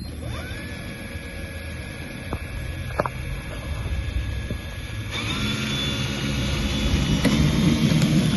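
Electric motor and propeller of a small FPV model plane: a steady whine that settles just after the start, then about five seconds in the throttle goes up and the sound thickens and gets louder for take-off.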